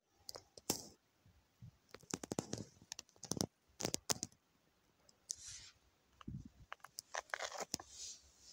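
Faint, irregular clicks and scratchy crackles, a few of them in quick clusters, with brief hissy rustles near the middle and toward the end.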